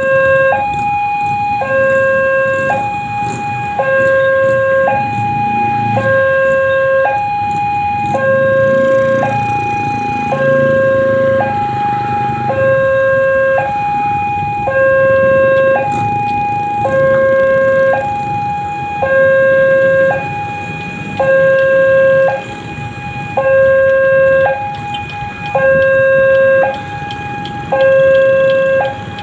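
Railway level-crossing warning alarm sounding a two-tone electronic signal that alternates between a high and a low pitch, each held about a second, repeating steadily to warn that a train is coming.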